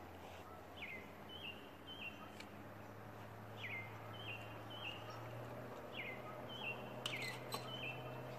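A songbird calling repeatedly, four phrases each made of a quick downward-slurred note followed by two short level notes, over a faint low steady hum. A few sharp clicks come near the end.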